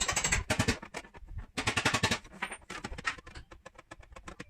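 Quick runs of light tapping on the rear fender panel of a 2020 Hyundai Tucson during paintless dent repair, with the sheet metal worked cold without harming the paint. The taps come densest near the start and again about one and a half to two seconds in, then thin out.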